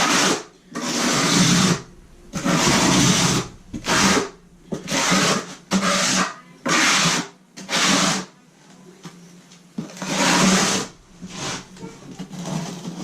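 Steel square-notch trowel scraping thinset mortar across a plywood subfloor in a dozen or so short, repeated strokes, pressing in a thin scratch coat. There is a pause of about a second and a half past the middle.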